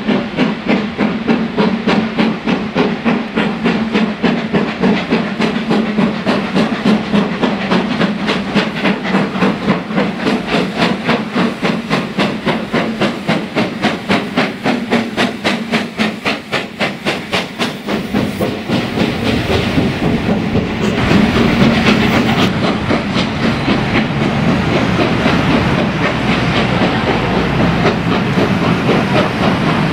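GWR Castle class four-cylinder 4-6-0 steam locomotive 7029 'Clun Castle' working under load, its exhaust beating in a quick, even rhythm with steam hiss. A little past halfway the beats blur into a steadier, deeper rumble of the locomotive and its coaches running on the rails.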